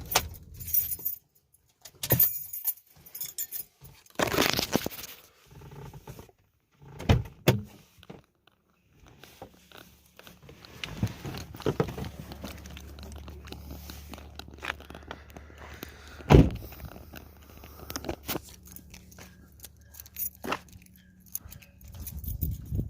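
Car engine switched off, its low hum stopping about a second in, followed by keys jangling and scattered clicks and handling noises, with one sharp loud knock later on.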